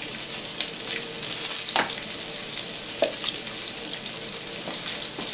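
Skin-on red snapper fillet frying skin-side down in grapeseed oil in a hot nonstick pan: a steady sizzle, with a couple of light clicks about two and three seconds in.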